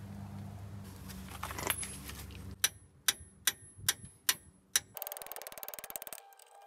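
Ratchet wrench working a stubborn brake caliper bolt: six sharp metallic clicks a little under half a second apart, then two runs of fast ratcheting near the end.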